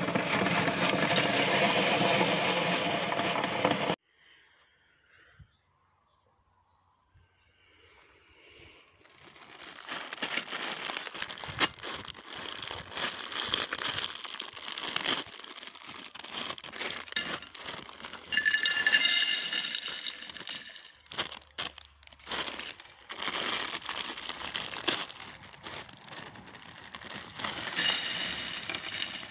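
Plastic snack packets crinkling and tearing as they are opened, and thin salted pretzel sticks clattering onto a plate. It opens with about four seconds of loud steady noise that stops suddenly.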